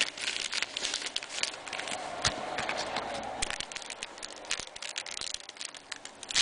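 Trading card pack wrappers crinkling and tearing open, with cards being handled and shuffled: a dense, irregular run of crackles and small clicks.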